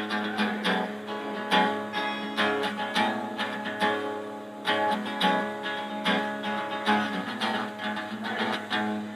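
Solo guitar playing an instrumental riff in B with hammer-on notes over a steady low ringing note, fading out near the end.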